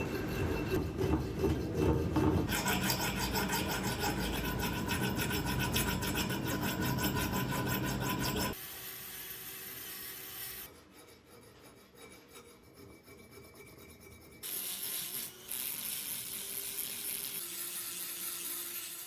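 Handheld rotary tool grinding the steel edges of a hatchet head with small abrasive stones, throwing sparks. The grinding drops quieter partway through and comes back louder for the last few seconds.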